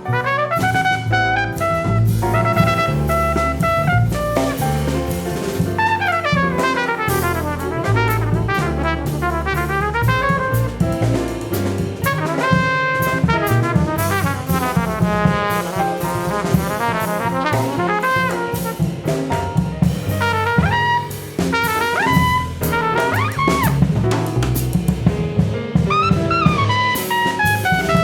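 Jazz quartet playing: trumpet leading over piano, bass and drum kit, with fast runs sweeping up and down.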